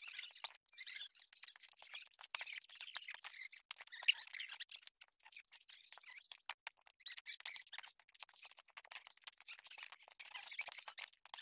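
Coconuts being husked by hand on a pointed husking spike: irregular crackling and tearing of the fibrous husks as they are pried off.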